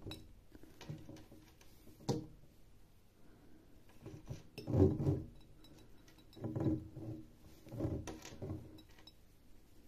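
Hands pulling and knotting cotton macramé cord around a glass jar: rustling of cord with a few bumps and knocks of hands and cord against the jar, the loudest about halfway through.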